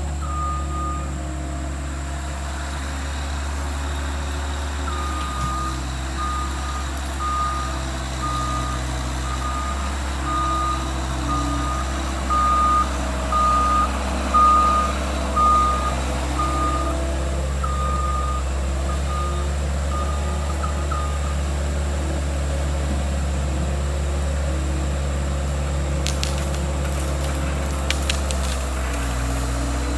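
Skid steer's engine running steadily while its reverse alarm beeps about once a second for much of the time, as the machine backs up.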